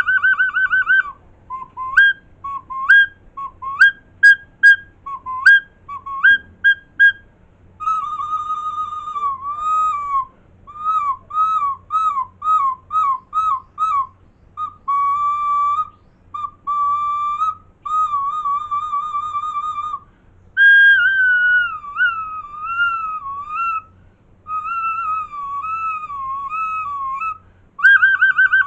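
Recorder head joint blown on its own, giving one shrill whistle tone that is bent and warbled: rapid trills, a run of short upward flicks, scooping slides and wavering held notes, in many short bursts.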